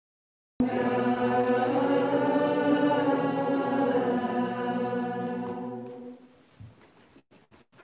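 Orthodox liturgical chant sung by several voices, starting abruptly about half a second in and fading away about six seconds in.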